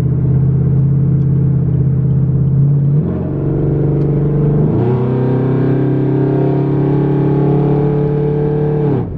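Car engine with freshly installed Texas Speed long-tube headers, heard from inside the cabin, pulling under acceleration. The engine note shifts in pitch about three seconds in and again near five seconds, climbs slowly, then falls away abruptly near the end as the throttle comes off.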